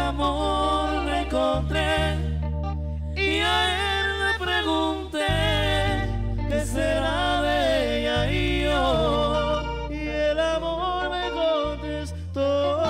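Live band playing a song: a man sings the lead melody into a microphone over electric bass and acoustic guitar, the bass holding long notes that change every couple of seconds.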